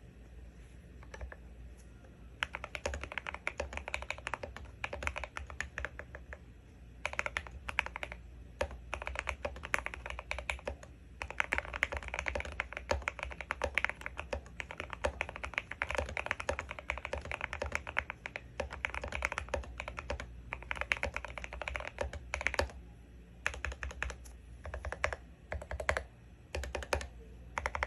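Typing on a Sikakeyb Castle mechanical keyboard with Gateron Full Milky Yellow linear switches lubed with Krytox 205g0, XDA keycaps, and foam and tape mods. Fast, dense keystrokes start about two seconds in and run with a few short pauses.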